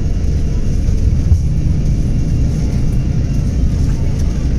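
Airliner's jet engines at takeoff thrust during the takeoff roll, heard from inside the cabin: a loud, steady low rumble with a few faint high engine tones over it.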